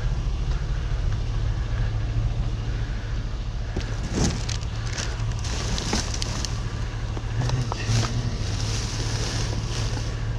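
Vehicle engine idling with a steady low hum, with scattered knocks and rattles from about four seconds in.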